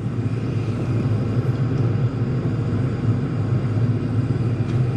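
Diesel air heater running steadily with a low, even hum from its fans and burner. It has fired up on its first burn and is starting to put out heat.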